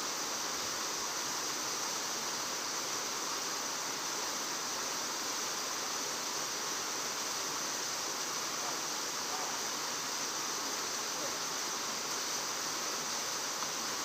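Steady, even rushing noise with a constant high hiss in it.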